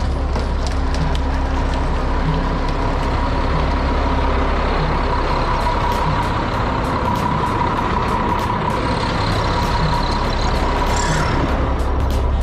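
Concrete mixer truck's diesel engine running steadily, with a steady high-pitched whine throughout and a low pulse repeating about once a second.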